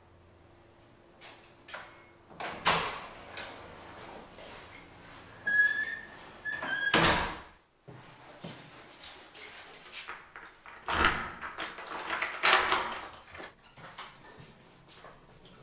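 Doors being opened and shut: handles and latches clicking and the doors thudding closed, several times, with a short high squeak about five and a half seconds in.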